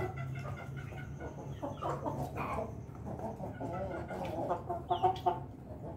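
Ayam ketawa (laughing chicken) rooster clucking in a run of short calls, with a louder cluster about five seconds in.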